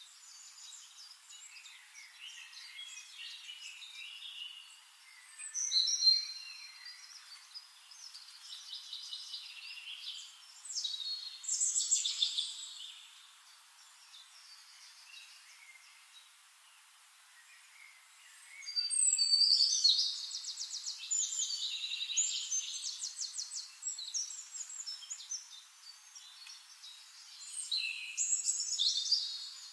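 Songbirds singing: a run of chirps and quick trills in several spells, the busiest a fast trill of rapidly repeated notes about two-thirds of the way through. The sound is thin, with nothing deep beneath the birdsong.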